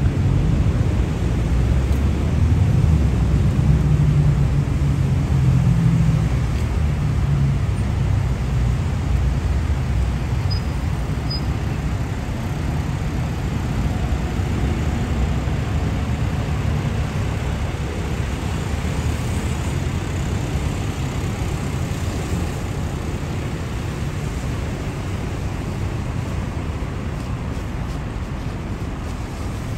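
Heavy road traffic as a steady low rumble of passing vehicles, loudest over the first six seconds or so and then slowly easing.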